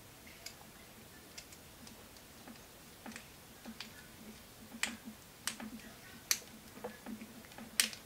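Small scattered clicks and taps of wire ends and a plastic screw-terminal connector block being handled, with a few sharper clicks in the second half.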